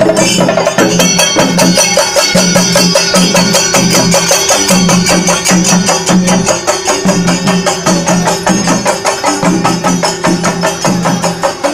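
Chenda melam: a troupe of Kerala chenda drums beaten rapidly and continuously, with a low beat pulsing about twice a second and a steady high ringing above, likely from cymbals.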